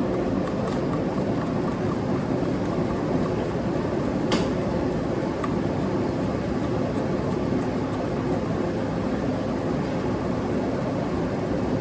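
Steady mechanical hum with no change in pitch, with a faint click about four seconds in.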